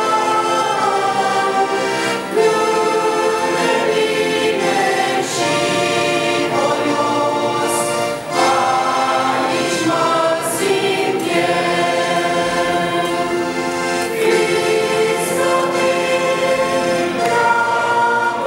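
Mixed choir of men, women and children singing a hymn in sustained, held chords, with an accordion accompanying.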